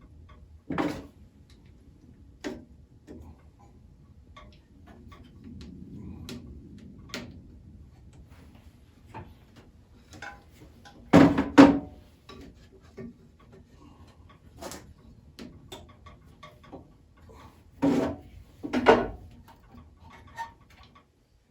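Scattered knocks, taps and rubbing as a warm urethane tire is stretched and worked by hand onto a bandsaw wheel, with a cluster of louder thumps about halfway through and two more near the end.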